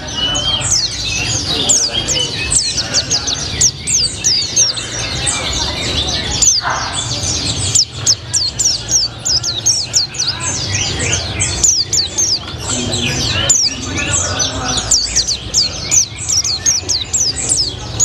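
White-eye (pleci) singing continuously: a fast, dense stream of short, high, downward-slurred chirps with hardly a pause.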